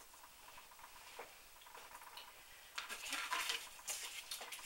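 Cardstock sheets being handled and slid across a craft mat: a few light taps, then a louder stretch of paper rustling and scraping about three seconds in.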